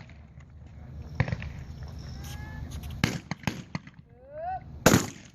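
Shotgun shots in a trap round: one about a second in, two in quick succession about three seconds in, and the loudest near the end, just after a shooter's short shouted call for the target.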